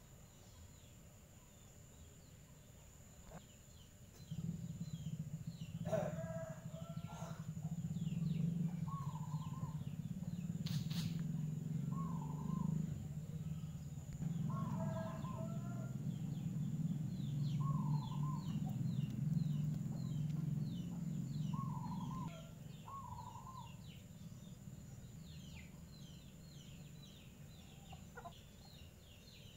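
Outdoor ambience: short bird calls repeat every few seconds over a steady high whine, with quick high chirps joining in the second half. A low drone sets in about four seconds in and stops about twenty-two seconds in; it is the loudest sound.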